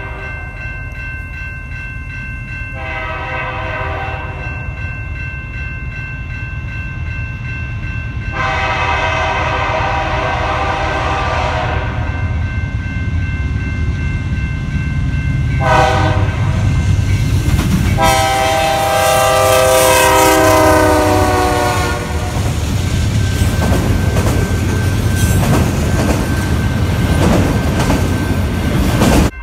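Canadian National freight locomotive air horn blowing four blasts over the rumble of the approaching train. The second and fourth blasts are long and the third is short, the pattern of a grade-crossing warning. In the last few seconds the train is passing close by, with a steady rumble and the clatter of freight car wheels on the rail joints.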